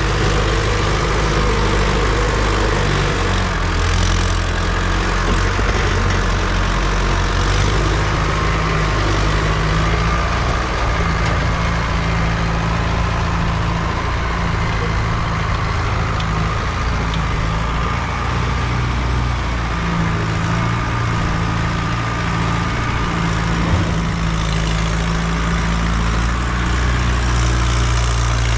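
Mahindra Arjun 605 DI tractor's four-cylinder diesel engine running steadily under load while pulling a trolley loaded with soil.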